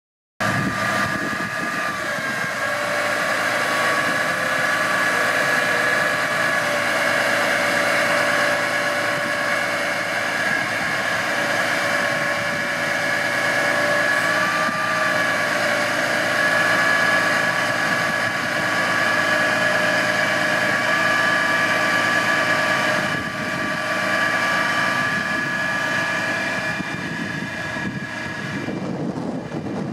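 Truck engine running with the hydraulic pump of an Altec bucket-truck boom, a steady whine with small shifts in pitch, while the boom is operated. It dips slightly near the end.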